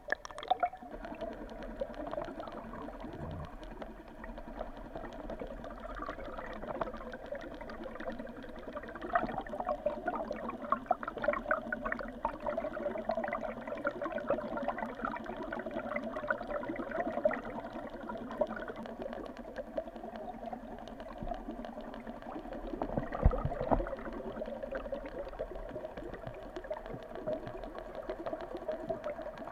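Underwater recording of a wooden trolling wobbler being towed: water rushing past with a steady hum, and many small rapid clicks from the lure's built-in rattle. A louder low thump about 23 seconds in.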